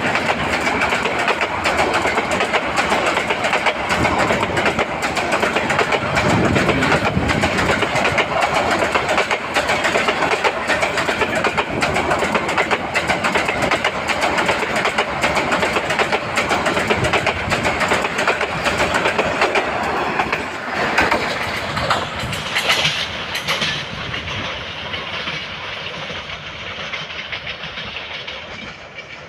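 Intercity passenger train passing at speed, with a continuous rattle of wheels on the rails. About two-thirds of the way in it begins to fade, getting steadily quieter and duller as it moves away.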